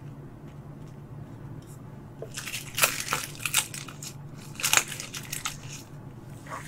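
Dry seasoned laver (gim) crackling and crinkling as it is folded by hand around tuna sashimi, in two crisp bursts of crackles, the first about two and a half seconds in and the second about four and a half seconds in.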